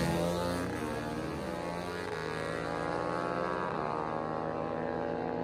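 A dirt bike and a four-wheeler accelerating hard off a drag-strip launch. The engines rev up through the gears, their pitch climbing, dropping back at an upshift about two-thirds of the way in, then climbing again.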